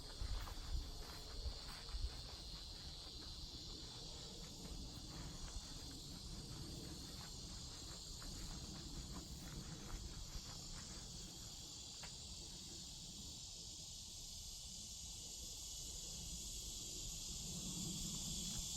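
Steady high buzzing of cicadas in the trees, swelling near the end. Scattered footsteps and rustling in leaf litter over roughly the first half.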